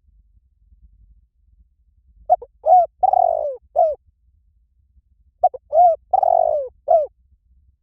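Spotted dove cooing: two phrases about three seconds apart, each of four low coos, with the third coo the longest and slurring downward.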